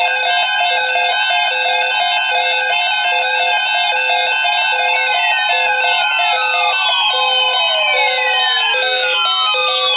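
Several weather alert radios sounding their alarms at once: overlapping electronic beeps repeating evenly at several pitches. Falling sweeping tones join from about halfway through.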